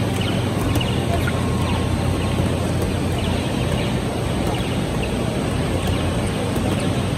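Steady low hum of electric blowers keeping inflatables up, under a busy hall din, with short high chirps and faint clicks scattered through.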